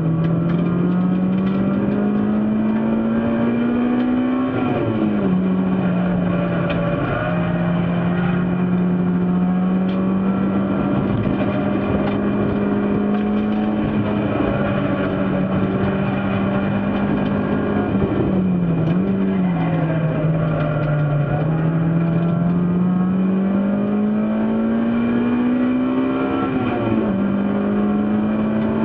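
Race car engine running hard under load, its pitch climbing steadily as the car accelerates and dropping sharply at a gear change about four seconds in and again near the end. Through the middle the engine holds a fairly steady pitch, with a brief dip and pick-up about two-thirds of the way through.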